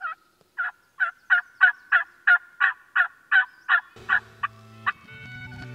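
Wild turkey yelping: a run of about a dozen short, evenly spaced yelps, roughly three a second. Music fades in under the last few yelps, about four seconds in.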